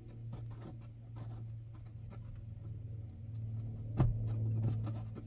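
Light scraping and small metallic clicks of a bolt being worked by hand into the threaded hole of an accelerator pedal bracket, with one sharper knock about four seconds in, over a steady low hum.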